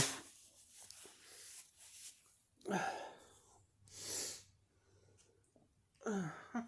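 A person's short, faint breathy vocal sounds: a brief voiced sound about three seconds in, a noisy breath about a second later, and another short voiced sound near the end.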